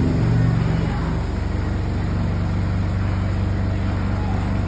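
Electric spin dryer running steadily, its motor giving an even low hum, while wrung-out water pours from the drain hose into a bucket.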